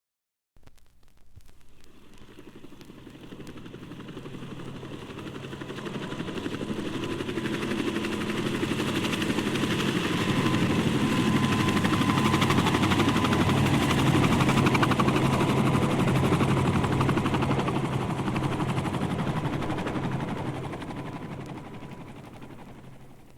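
An aircraft flying over: a fast, beating engine-and-rotor sound that grows steadily louder, peaks about midway, then fades away as it passes.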